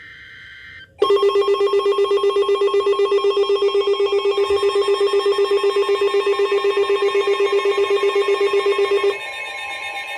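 Emergency alert tones for a tornado warning: about a second of soft warbling data tones, then a loud alert tone pulsing rapidly for about eight seconds. It drops to a quieter, different tone about nine seconds in.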